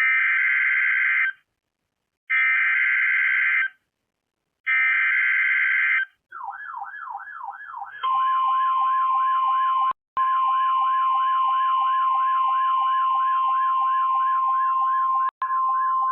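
NOAA Weather Radio Emergency Alert System alert: three short bursts of SAME header data tones, the screeching digital code that marks the start of a new warning message. After them a fast warbling alarm starts, and then a steady 1050 Hz warning alarm tone, which signals that a warning, not a routine message, follows.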